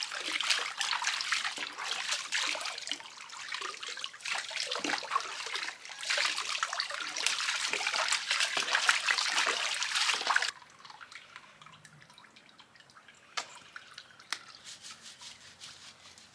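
Water running, splashing and trickling over a dog being bathed in a kiddie pool. It eases off briefly, picks up again, then cuts off suddenly about ten seconds in, leaving faint drips.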